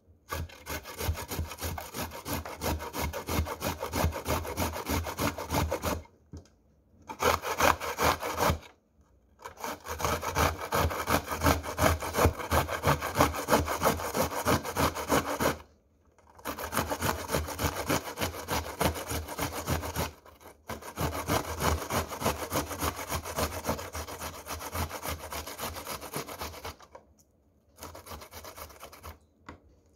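Red onion being grated on a stainless steel box grater: fast back-and-forth scraping strokes in runs of a few seconds, broken by short pauses.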